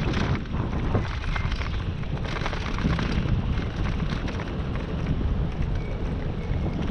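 Wind buffeting the microphone of a camera on a moving bicycle: a steady, heavy low rumble, with road noise and a few brief clicks.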